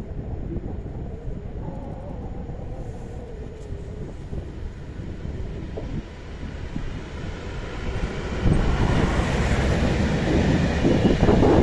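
SM42 diesel shunting locomotive hauling a freight train: a steady diesel rumble with an engine tone, growing much louder about eight seconds in as it draws near, with wheel and wagon noise building toward the end.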